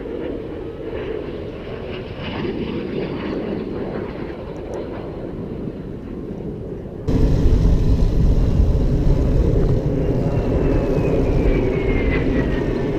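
Aerobatic airplane's engine heard overhead, a high tone sliding down in pitch twice, over the low rumble of wind and a moving motorcycle. About halfway through the low rumble jumps up suddenly and stays loud.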